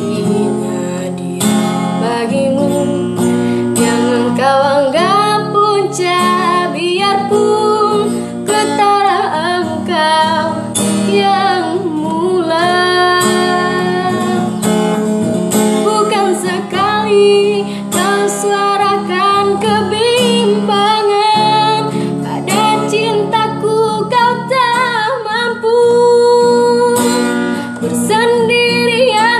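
A young woman singing a slow song while accompanying herself on an acoustic guitar.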